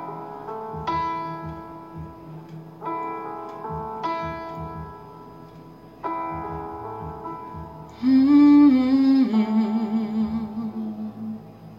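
Closing bars of a song: guitar chords struck about every two seconds, then a voice comes in about two-thirds through and holds a long wordless note.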